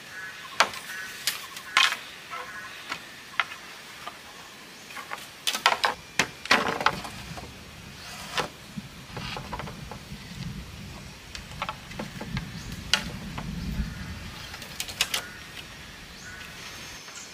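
Irregular sharp knocks and clicks, bunched together about five to seven seconds in, with a low rumble under them for several seconds; birds chirp at times.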